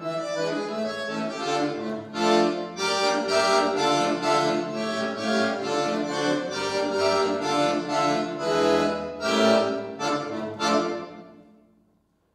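Chromatic button accordion playing chords over bass notes. The piece ends on a final chord near the end, which dies away to silence.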